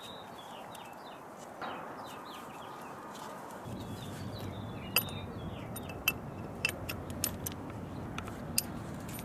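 Small birds chirping in the background. About a third of the way in a low steady rumble sets in, and sharp metallic clinks come at irregular intervals as the air-hose coupling and the steel piercing tool are handled.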